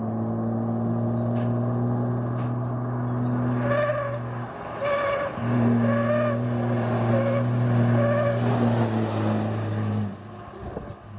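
Heavy truck on a highway with a steady low drone that cuts off for about a second midway and then resumes, and a higher tone pulsing about once a second over the middle of the stretch.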